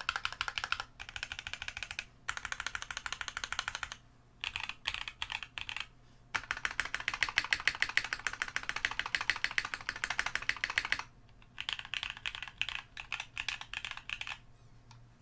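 Typing on a DZ60 60% keyboard in an acrylic Tofu case with a polycarbonate plate, H1 switches lubed with 205g0 and sprung at 68g, and GMK ABS keycaps: quick runs of keystrokes broken by short pauses. The typing stops near the end.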